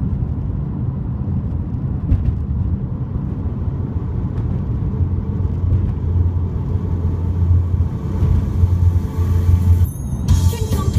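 Road noise heard from inside a car cruising at highway speed: a steady low rumble of tyres and engine, heavier in the second half. About ten seconds in, a brighter sound abruptly cuts in over it.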